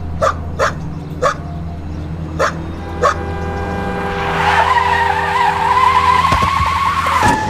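A dog barks five times in quick short barks. Then a car brakes hard, its tyres skidding in a long high screech that cuts off suddenly near the end.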